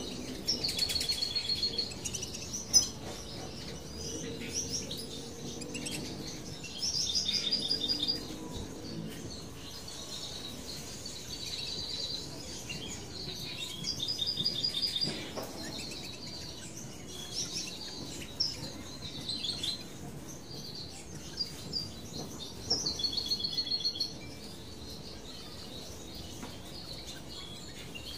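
Small songbirds chirping in short high trills, a burst every few seconds over a steady low background, with one sharp click about three seconds in.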